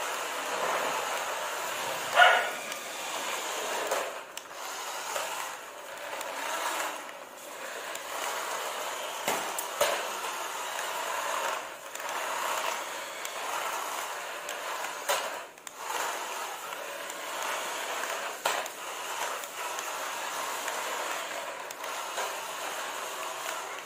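Small electric motors of toy remote-control cars whirring, and their plastic wheels rolling on a hard stone floor. There is a sharp, brief high-pitched sound about two seconds in, and a few knocks later on.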